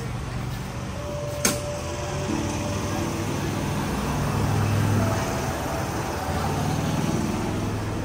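A low steady mechanical hum with people's voices murmuring underneath, and one sharp click about one and a half seconds in.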